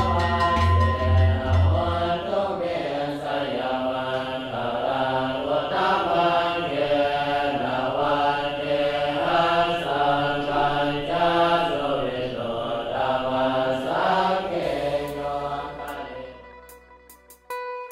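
Young Buddhist novice monks chanting together from their texts, the voices moving in repeated phrases. A large temple gong is beaten in quick repeated strokes for the first couple of seconds, and the chant fades out near the end.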